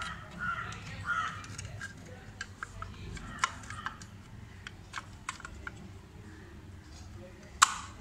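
Hard plastic terminal cover being handled and pressed onto a refrigerator compressor's relay and overload protector: scattered small plastic clicks and scrapes, with one sharper click near the end.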